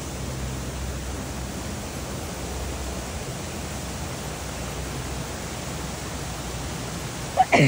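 Steady rush of a forest stream flowing over rocks. A short, loud sound with a sliding pitch cuts in near the end.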